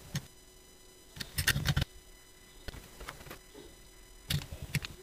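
Hand drill cranked in short bursts, drilling 1.5mm holes in thin resin model panels, with rattling clicks. The largest burst comes about a second in, another just past four seconds, and a few single clicks fall between.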